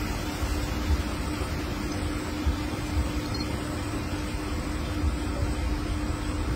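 Steady background noise with a faint constant hum and irregular low rumbling, like a fan or wind on the microphone.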